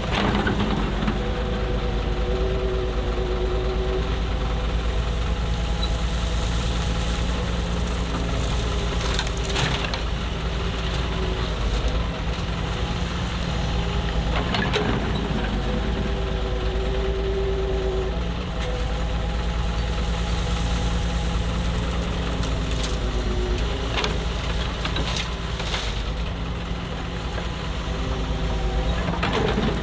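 Diesel engine of a Doosan DX140W wheeled excavator running steadily as it works, its pitch shifting a little now and then, with a few sharp knocks spread through.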